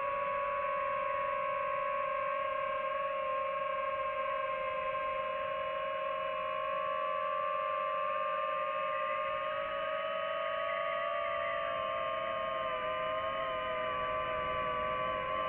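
Quadcopter motors and propellers on a DJI FPV drone whining steadily in flight. Several close pitches waver slowly as the motors change speed, rising and dipping a little past the middle.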